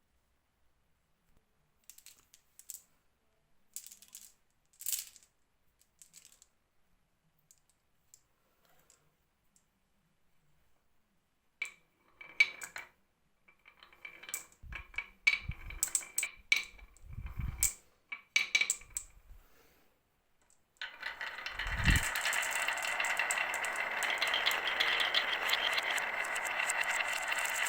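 Marbles clicking and clattering down a marble run track: scattered single clicks at first, then busier clicks with a few dull knocks. About three quarters of the way through, a dense, continuous rattle starts as many marbles roll together, and it is the loudest part.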